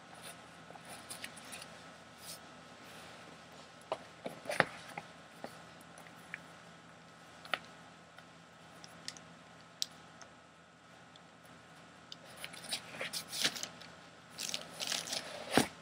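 Handling noise from putting on and lacing Air Jordan 11 Low sneakers: scattered soft rustles and clicks of laces being pulled and the shoes being worked onto the feet. It gets busier in the last few seconds, with a sharp knock just before the end.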